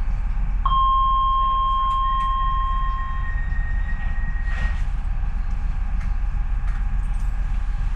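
Docklands Light Railway train's steady low rumble at a station stop. About a second in, a steady electronic tone sounds for about two and a half seconds, with a second higher tone overlapping it until about five seconds in.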